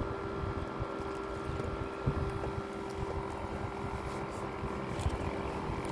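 A boat's motor running at a steady pitch, with wind buffeting the microphone in irregular low gusts.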